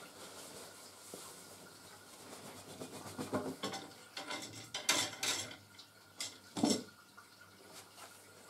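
A match fishing rod being unpacked from its fabric rod sleeve: cloth rustling and rubbing, with a few short knocks and clinks of the rod, mostly between about three and seven seconds in.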